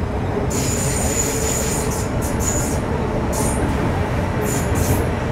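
MTR Metro Cammell M-Train car running, heard from inside the carriage: steady rumble with a high-pitched squeal that starts about half a second in and comes and goes in patches. This is the abnormal noise that shows up on the downhill stretch.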